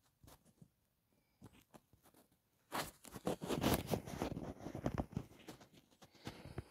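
Faint scattered rustles, then, a little under three seconds in, a dense run of crackling and rustling footsteps through forest-floor leaf litter and undergrowth.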